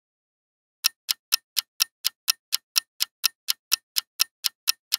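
Steady clock-like ticking sound effect, about four sharp, crisp ticks a second, starting about a second in.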